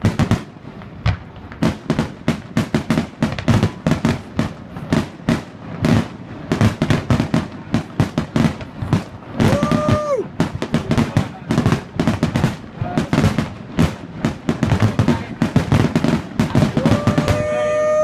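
Aerial fireworks shells bursting in a rapid barrage, many bangs a second, each echoing. A steady held tone sounds twice, once about halfway through and again near the end.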